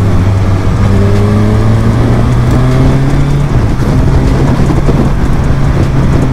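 Kawasaki Ninja 1000's inline-four engine running steadily while riding at road speed, with wind rush. The engine note steps up a little in pitch about halfway through.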